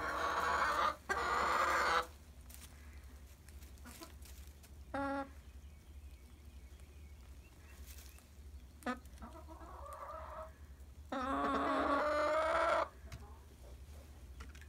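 Chickens calling in the coop: drawn-out, wavering hen calls, two back to back at the start, a short one about five seconds in, a softer one around ten seconds, and a longer one near the end. A faint steady low hum underneath.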